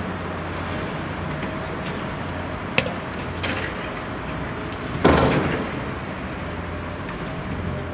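Heavy diesel machinery running steadily, with a sharp knock a little under three seconds in and a loud metallic bang about five seconds in that rings briefly as material drops from the excavator bucket into the steel tipper trailer.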